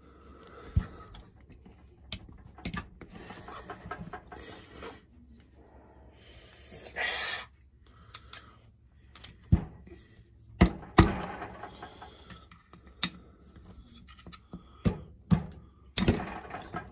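Metal clicks, knocks and scraping of a screwdriver and small parts as a stuck carburetor is worked loose from an old Homelite XL2 chainsaw. The knocks are scattered and get louder and more frequent in the second half, and there is a short rasping noise about seven seconds in.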